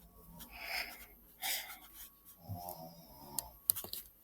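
A sleeping woman breathing heavily, with soft breaths and a fluttering snore about two and a half seconds in. A few faint clicks come near the end.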